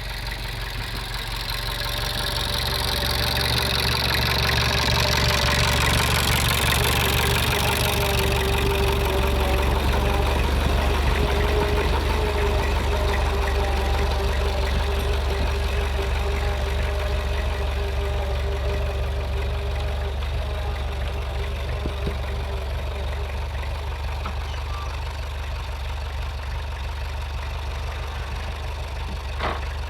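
Tractor engine running steadily, a low drone that grows a little louder over the first several seconds and then slowly eases off; a single short knock near the end.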